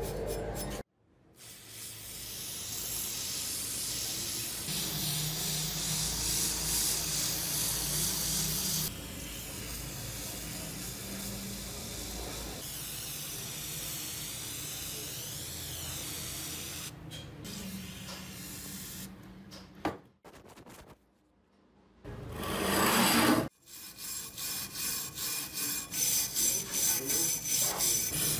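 Wire brush scrubbed by hand over a rusty steel hatchet head, rasping in quick back-and-forth strokes. A short, loud hiss of spray from an aerosol can comes a little after three quarters of the way through.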